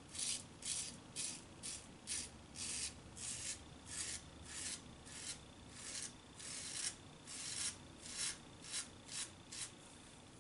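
Short, rapid scraping strokes of a GEM single-edge safety razor cutting through lathered stubble against the grain, about two a second. The strokes stop near the end.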